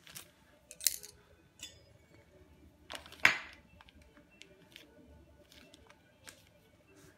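Utility knife cutting the plastic protective film on a laminated shelf panel, then a metal leg mounting plate being handled and set in place: scattered soft rustles and clicks, the loudest a short sharp sound about three seconds in.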